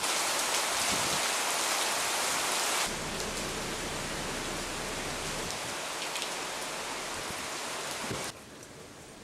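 Thunderstorm rain falling steadily as an even hiss. It drops suddenly in level about three seconds in, and again more sharply near the end.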